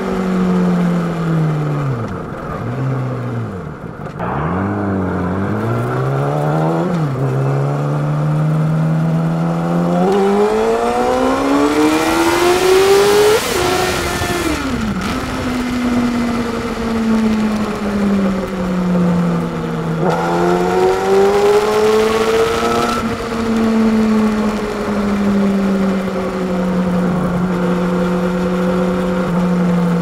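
Yamaha YZF-R6 (RJ11) 600 cc inline-four with an SC-Project exhaust, heard from the saddle while riding. The engine note falls and dips several times early on as the bike slows and changes down. About ten seconds in it climbs steeply under hard acceleration and drops at a shift, then eases off. It pulls hard again around twenty seconds in and settles to a steady cruise.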